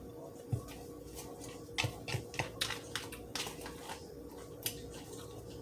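A person eating fried fish close to the microphone: irregular crisp clicks and crackles of biting and chewing, over a faint steady hum.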